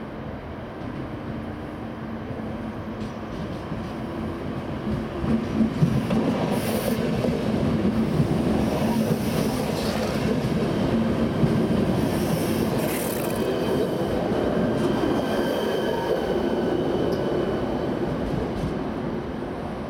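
ČD class 471 CityElefant double-deck electric multiple unit pulling away and passing close by, with a steady motor hum and wheels squealing on the rails. It gets louder about five seconds in as the cars pass, then fades near the end.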